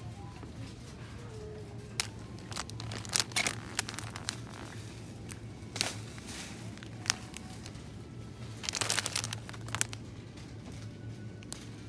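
Thin plastic food packets crinkling as they are picked up and handled, in scattered sharp crackles with a longer burst near the end, over a steady low hum.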